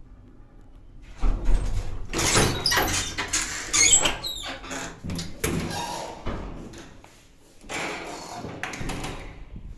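Lift doors sliding and knocking shut on an early-1980s Daka traction lift, a run of scraping clatter and bangs with a brief high squeak partway through.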